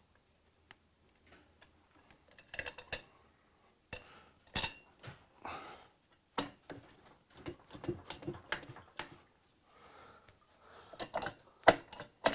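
Metal exhaust header pipes of a Ducati 900SS clinking and knocking against the bike as they are wiggled loose by hand. Scattered taps, with sharper knocks about four and a half seconds in and near the end.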